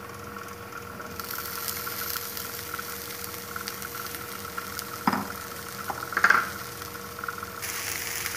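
Rice, spices and chopped banana flower sizzling as they are stir-fried in a kadai, with a metal spatula scraping the pan, louder twice about halfway through.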